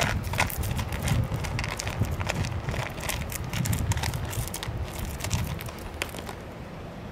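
A tabby cat chewing food from a plastic tray close by: a quick, uneven run of clicks and smacks over a low rumble. The chewing sounds stop about six seconds in.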